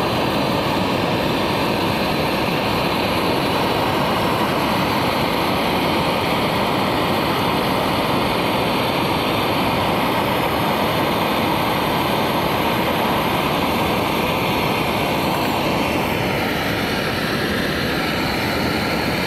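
Hose-fed gas torch burning with a steady, loud rushing flame as it heats a bar of spring steel to red heat for bending.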